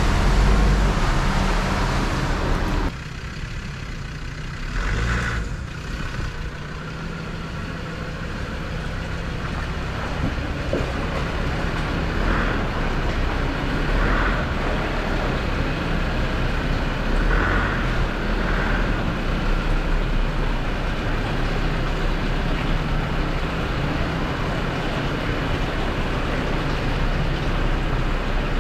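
Land Rover Discovery 2's Td5 five-cylinder turbodiesel engine running at low speed as it wades through shallow water. Loud and close at first, it drops suddenly about three seconds in, then grows slowly louder as the vehicle drives back toward the listener.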